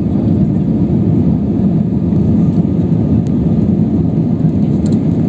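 Cabin noise of an Airbus A320 climbing after takeoff: a steady, low-pitched rush of engine and airflow noise heard from inside the passenger cabin.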